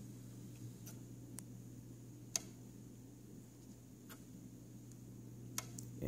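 Power-supply-board relay in a Samsung PN60E7000 plasma TV clicking: about six sharp, irregularly spaced clicks, two of them close together near the end, over a faint steady low hum. The relay cycling is the fault symptom of a cracked solder joint on the power supply board.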